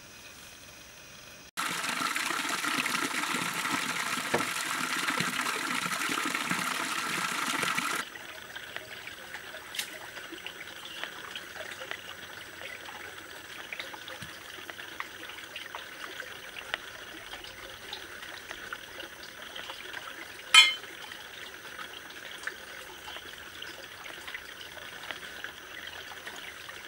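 Shallow stream water running over rocks: loud and rushing for several seconds, then quieter and trickling, with small scattered clicks and one sharp knock about twenty seconds in.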